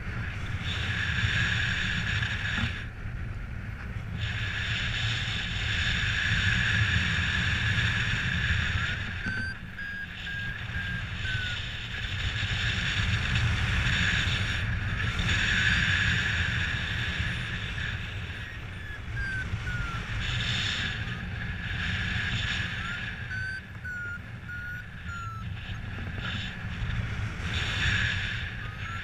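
Paragliding variometer beeping a high electronic tone in stretches of a few seconds, its pitch stepping up and down as it signals the glider's climb rate, over a steady low rush of wind on the microphone.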